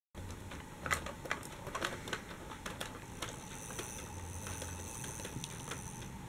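Plastic Dickie Toys toy train rolling along plastic toy track, its wheels clicking and rattling irregularly, with a faint high hiss joining about three seconds in.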